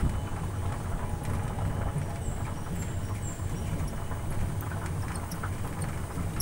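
Steady low rumble of an open-sided passenger shuttle car on the move, heard from a seat inside: running gear and tyres on the road, with no change in pace.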